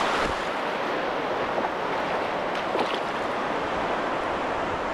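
Shallow surf washing in steadily around a wading angler's legs, with a few faint splashes.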